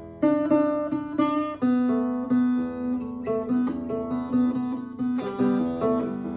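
Solo acoustic blues improvisation on an early-1950s Norwegian Leif Hansson acoustic guitar. Plucked notes with sharp attacks ring over a recurring lower note.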